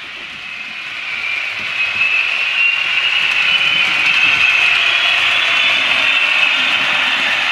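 Model trains running on the layout: a steady high whir from the small locomotive motors with a rattle of wheels on the track, getting louder from about a second in.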